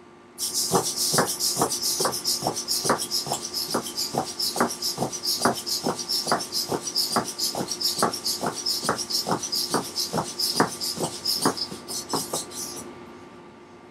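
Hexapod robot's eighteen Tower Pro MG90S micro servos whirring as it walks forward on a hardwood floor, with a sharp tick about twice a second as its steps land. The whirring and ticking start about half a second in and stop about a second before the end.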